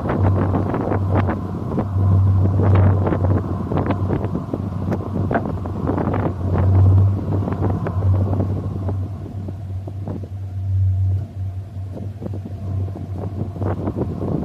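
Steady low drone of a vehicle in motion, with wind buffeting the microphone and frequent irregular knocks and rattles.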